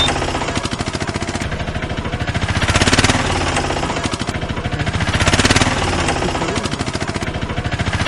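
A fast, steady mechanical rattle like a small engine running, swelling louder about every two and a half seconds.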